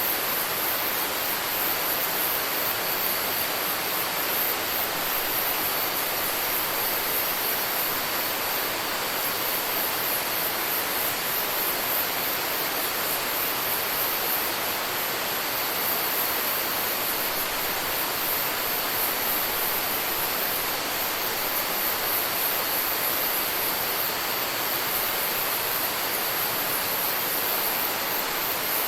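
Rainforest ambience: a steady rush of flowing water, overlaid by a high-pitched insect chorus that swells and fades.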